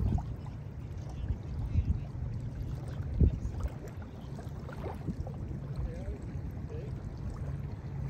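Small lake waves lapping onto a sandy shore, with a couple of louder splashes about two and three seconds in, over a steady low rumble.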